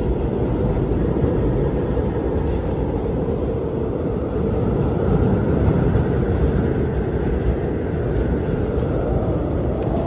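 Wind howling in a steady, deep rush, with a fainter higher whistle swelling and easing off around the middle.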